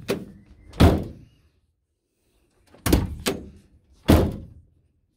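Mk7 Ford Transit van's rear door being shut and latched several times, each a solid slam with a latch clunk: a loud one about a second in, a quick double clunk near three seconds, and another loud slam just after four seconds. The newly fitted handle and cable lock let it shut solidly.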